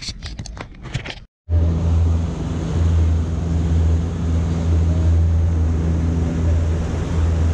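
A bass boat's outboard motor running steadily under way: a loud, even low drone over a constant rush of wind and water. It comes in suddenly after about a second and a half of clicks and rustling.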